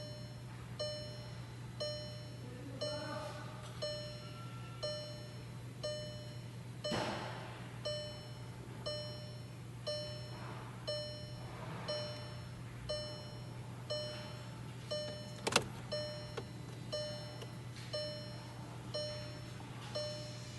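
Electronic warning chime dinging evenly about once a second, typical of a car sounding its warning with the ignition switched off, over a steady low hum. A sharp click comes about two-thirds of the way in.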